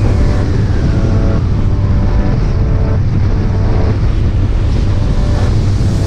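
Loud, steady wind rushing over a riding motorcyclist's microphone, with faint music underneath.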